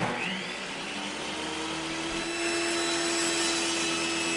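Sound effect of a motor-driven circular saw machine spinning up and running: a brief rising whine at the start, then a steady motor hum and whir.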